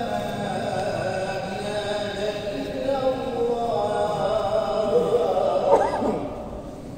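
A man chanting Arabic prayer liturgy in a long melodic line, with held notes that bend and slide in pitch; the phrase trails off near the end.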